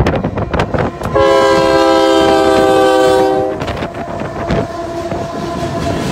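Union Pacific diesel locomotive's multi-chime air horn sounding one long blast of about two and a half seconds, starting about a second in, as the locomotives pass the crossing. After the horn stops, the locomotives and freight cars run past with wheel clatter.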